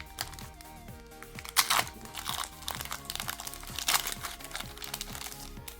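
Foil booster pack wrapper crinkling as it is opened, with two louder rustles about a second and a half in and near four seconds, over background music.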